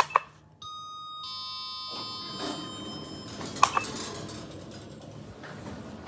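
Otis Gen2 elevator call button clicking as it is pressed, then the elevator's electronic chime: a higher note followed by a lower one, ringing out for about two and a half seconds. A sharp double click comes about three and a half seconds in, over a low steady hum.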